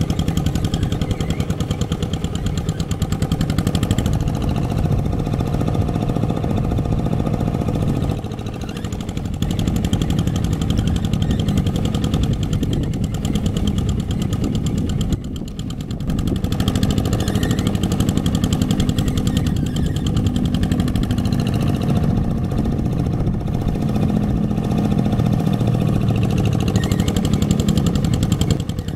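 Single-cylinder diesel engine of a two-wheel hand tractor (Quick G1000) running steadily under load as it pulls cage wheels through sticky rice stubble, easing off briefly twice, about eight and fifteen seconds in.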